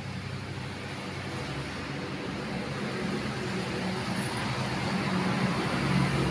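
Road traffic: a motor vehicle's engine hum with a steady low drone that grows gradually louder as it approaches.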